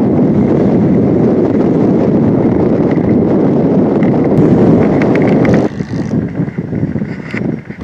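Wind buffeting the microphone: a loud, steady low rumble that drops off sharply about five and a half seconds in.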